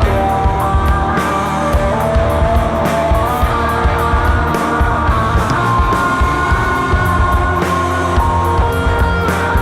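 Psychedelic stoner rock band playing live: guitars, bass and drums, with a lead line of long held notes over a steady beat of drum and cymbal hits.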